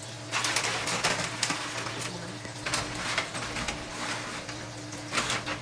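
Rustling and clattering of objects being handled, with many small clicks, loudest in the first half and again near the end, over a steady low hum.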